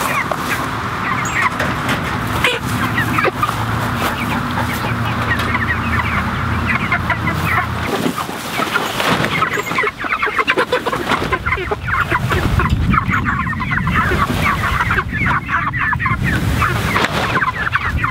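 A flock of young Barred Rock chickens clucking and calling, many short overlapping calls throughout, with a steady low hum underneath for about the first half.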